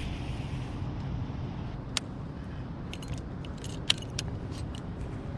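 Steady low rumble with scattered sharp clicks and light metallic clinks, the loudest two about two and four seconds in.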